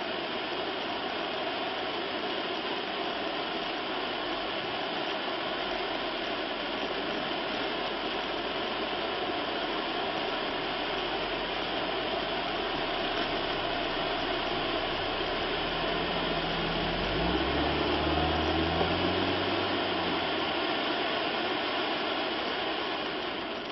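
Blackboxx XXL giant silver cylinder fountain firework burning, with a steady hiss of spraying sparks.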